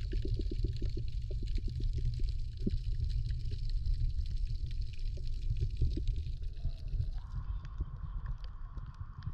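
Muffled underwater sound picked up by an action camera in its waterproof housing: a steady low rumble of moving water, with quick small clicks through the first few seconds. About seven seconds in the sound changes as the camera comes up to the surface.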